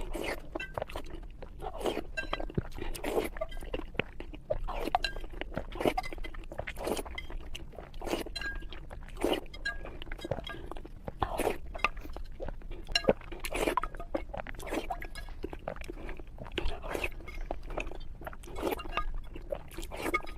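Close-up chewing and crunching of someone eating egg, irregular bites and mouth sounds about once or twice a second, with occasional light clinks.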